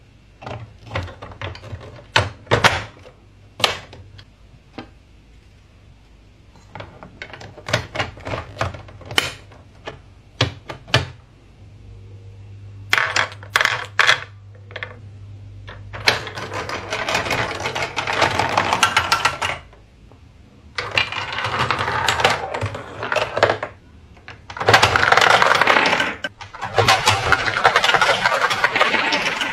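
Plastic toy track pieces clicking and knocking as they are fitted together. Then plastic balls clatter and rattle down the plastic ramps in three long runs, about halfway in.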